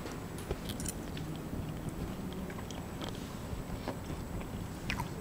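A person chewing a mouthful of roast pork, with a few light clicks of a knife and fork against a plate, over a low steady room hum.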